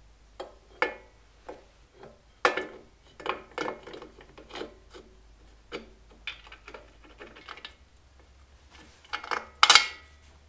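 Metal suspension link and pivot bolts clicking, knocking and scraping against each other and the swingarm mounts as the GL500 rear shock link is fitted back onto the motorcycle's Pro-Link linkage by hand. The knocks come in an irregular scatter, with one sharp ringing metallic clank near the end.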